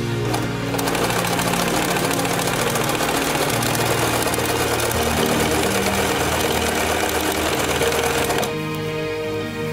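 Electric domestic sewing machine running steadily, its needle stitching a seam through layered fabric. It starts about a second in and stops about a second before the end, with background music throughout.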